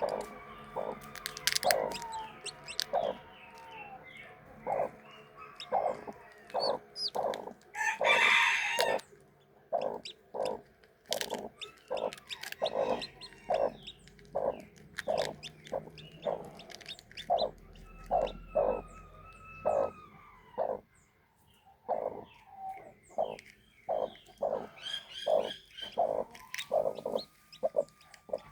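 Animal calls: a steady run of short repeated calls, with one louder, harsher call about eight seconds in.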